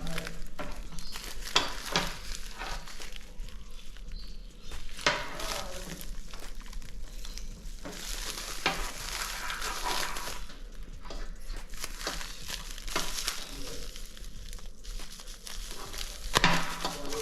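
Plastic packaging rustling and crinkling, broken by irregular clicks and light knocks as parts are handled and unwrapped.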